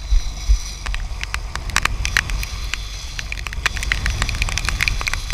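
A boat's engine runs as a steady low rumble under a constant crackle of wind and churning sea spray, with many short sharp ticks scattered through it.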